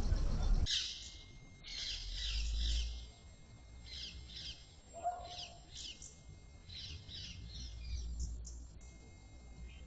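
A bird chirping in quick runs of short high notes, with a faint low rumble coming and going beneath. A loud noise cuts off abruptly under a second in.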